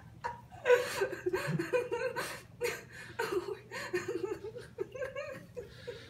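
A person laughing: a long run of short giggles that starts about a second in and dies away shortly before the end.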